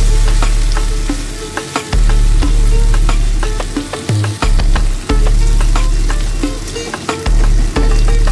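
Drumstick pods and potato slices sizzling and crackling in oil in a nonstick pan, stirred with a spatula near the start. Deep bass notes from background music come in every couple of seconds and fade.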